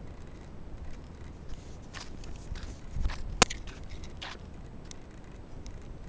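Footsteps on a paved path over a steady low rumble of wind and handling on the microphone, with scattered light clicks and one sharp click about three and a half seconds in.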